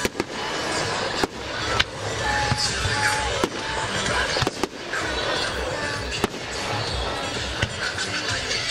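Aerial fireworks display: a continuous crackle with sharp bangs of shells bursting every second or so, and a few short whistles about two to four seconds in.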